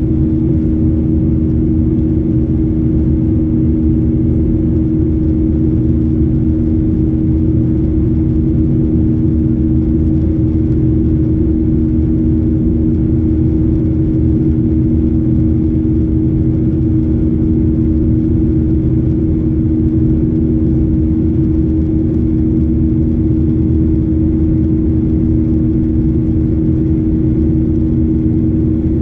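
Cabin noise inside a Boeing 737-800 in flight: the steady drone of its CFM56-7B turbofans, with two steady hum tones over a low rumble.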